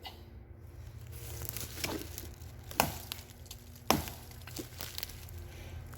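Handcrafted camp axe chopping wood: three sharp chops about two, three and four seconds in, with a fainter knock shortly after.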